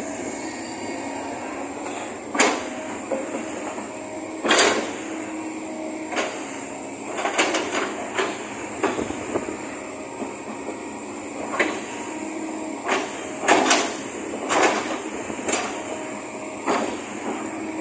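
Kobelco SK200 hydraulic excavator working: a steady machine noise broken by loud metallic clanks and squeals at irregular intervals, about a dozen in all.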